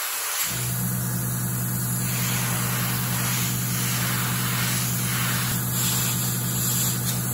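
Airbrush hissing as it sprays primer, with a small air compressor's motor switching on about half a second in and running with a steady low hum.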